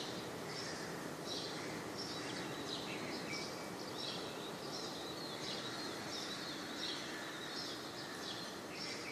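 Birds chirping, short high calls repeating every half second or so, over a steady background hiss of outdoor noise.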